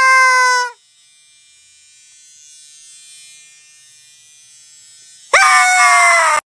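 A man's loud, high-pitched scream about five seconds in, lasting about a second and cutting off abruptly. Before it, a brief held high voice note at the start, then a low hiss.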